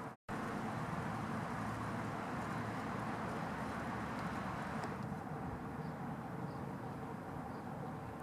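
Steady outdoor background rumble and hiss, with a few faint short bird calls in the second half. The sound drops out for an instant just after the start.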